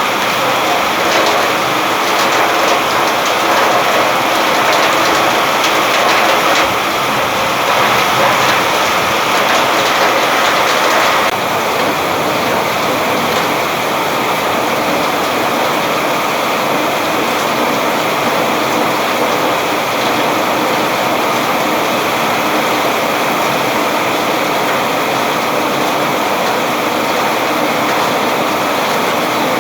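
Steady rainfall with a dense patter of drops. About eleven seconds in, the sound changes suddenly to a smoother, slightly softer rush of rain.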